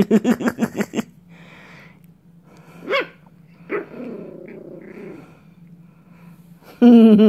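Yorkshire terrier puppy growling and barking as it plays with a leash. There is a fast stuttering growl in the first second, a single bark about three seconds in, and a loud wavering growl near the end.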